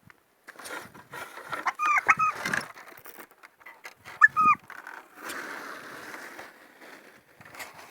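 Farmyard poultry calling: a few short, bending calls about two seconds in and again about four seconds in, among scattered yard noises.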